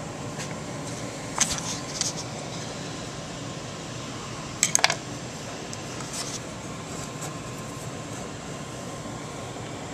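Light clicks and taps from handling the small metal parts of a Browning Citori shotgun receiver: a couple about one and a half to two seconds in, then a quick run of three or four sharp clicks near the middle. A steady hum runs underneath.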